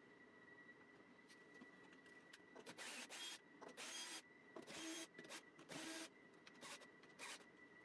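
A run of short scraping and rubbing strokes, about eight in five seconds, as MDF parts are handled and slid against each other, over a faint steady high whine.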